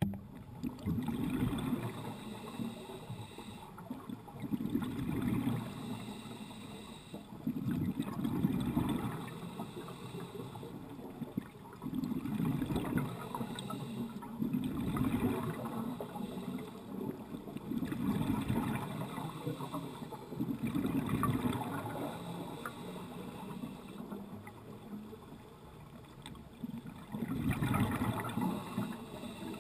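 Scuba diver breathing through a regulator underwater, each breath a burst of bubbling that comes about every three to four seconds, with a longer pause before the last one.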